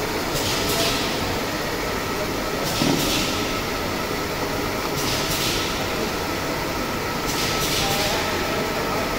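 Garlic peeling machine running with a steady mechanical rumble, and a hiss that swells and fades about every two seconds.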